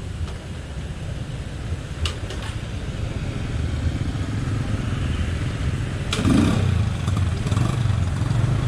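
Street traffic dominated by small motorbike and scooter engines running, the hum growing steadily louder. Two short sharp clicks come about two and six seconds in.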